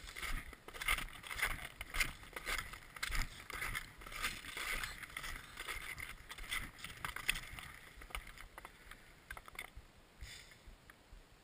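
Footsteps crunching in snow, irregular, thinning out about eight seconds in to a few faint scattered clicks.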